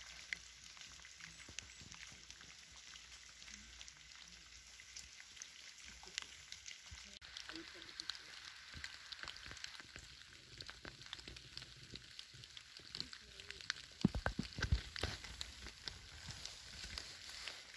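Light rain pattering and dripping onto wet fallen leaves in woodland, a steady fine crackle of many small drops. About fourteen seconds in, a few louder low thumps stand out.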